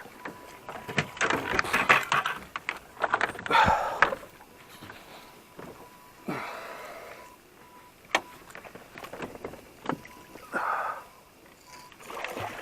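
Knocks, clicks and rustling of fishing gear being handled in a boat while a hooked blue catfish is fought and the landing net is brought out, with a few short swishing noises and one louder knock about two-thirds of the way through.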